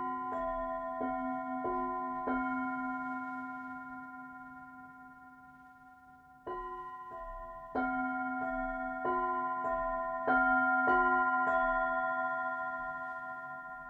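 Three singing bowls of different sizes struck one after another with a mallet, each strike ringing on as several steady overlapping tones. A run of strikes ends a couple of seconds in and the bowls ring and fade; then a quicker, even run of nine strikes follows and rings out.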